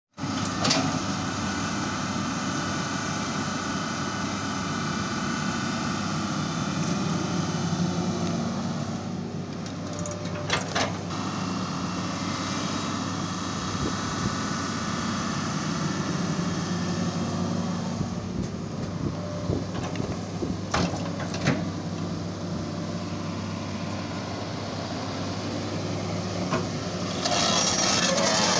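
Tracked hydraulic excavator's diesel engine running steadily as it digs out a ditch, with a few sharp knocks along the way. The sound grows louder and brighter near the end.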